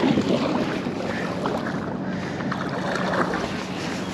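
Water lapping and splashing around a kayak hull, with a few small knocks and a faint steady low hum underneath.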